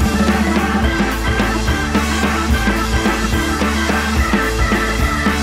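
Rock music with a steady beat, played back from reel-to-reel tape on an Akai X-201D deck.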